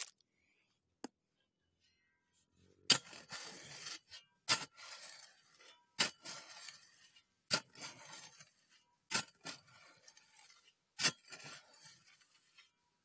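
A shovel digging in river sand, striking six times about every second and a half from about three seconds in, each sharp strike of the blade followed by a short scraping rustle of sand.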